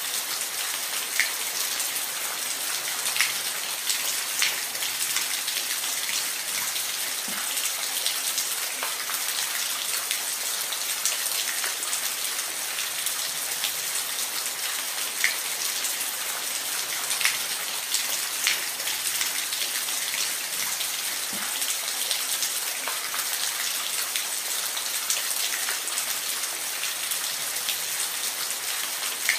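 Falling water: a steady, even hiss with small drop-like ticks scattered through it.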